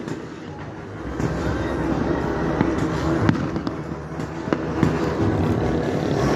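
Motorcycle engines running steadily, cut by a scatter of sharp bangs, about seven in all, irregularly spaced.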